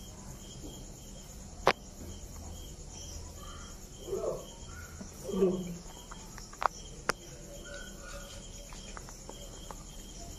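Crickets chirping steadily in the background, with a few sharp clicks, the loudest about two seconds in, and a couple of brief low voice sounds near the middle.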